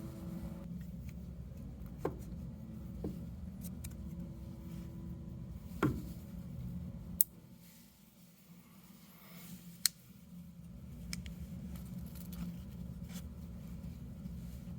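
Scattered sharp metal clicks and snaps from handling a Leatherman Signal multitool, about five in all, the loudest about six seconds in. A steady low hum runs underneath and drops away briefly near the middle.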